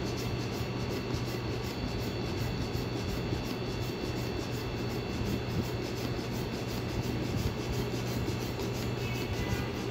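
Small hand pump with a needle valve inflating a rubber basketball, its handle worked back and forth in repeated strokes, over a steady low hum.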